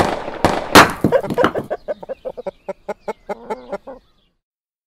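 Chickens clucking, cut into by three loud gunshot bangs in the first second, the last the loudest. Fast, rapid clucking follows and then stops suddenly about four seconds in.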